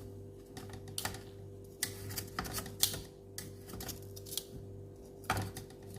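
Pork pieces on a hot stovetop grill, popping and spitting irregularly as moisture still in the meat cooks off, over a steady low hum.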